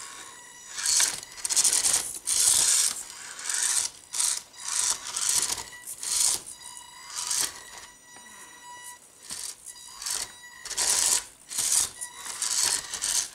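Carisma MSA-1E Subaru Brat 1/24 micro crawler's small electric motor and drivetrain whirring in repeated short bursts, about one a second, as it tries to climb a steep pile of branches, its tyres scrabbling and clattering on the wood; a thin high whine carries on between bursts. The truck is lacking power for the climb.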